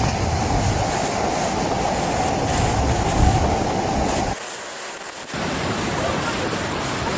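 Torrent of muddy floodwater rushing, a steady loud rush of water. It drops quieter for about a second, four and a half seconds in, then the rush of a swollen river carries on.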